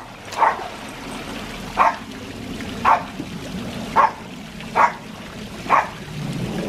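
A small dog barking at the edge of a pool, six single barks about a second apart.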